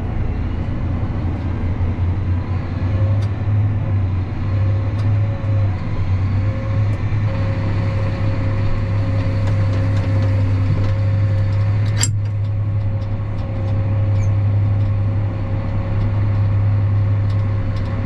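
Tractor engine running steadily under way, towing grain wagons, with a steady low hum. A single sharp click about twelve seconds in.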